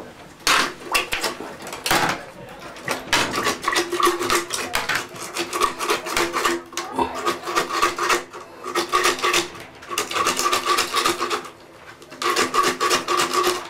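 Drill-driven drain snake working a clogged shower drain: the metal cable scraping and rattling in the drain pipe, with a steady motor tone coming and going in several short bursts.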